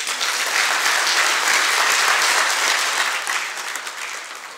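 Audience applauding in a lecture hall: a dense round of hand-clapping that swells quickly, holds, and dies away near the end.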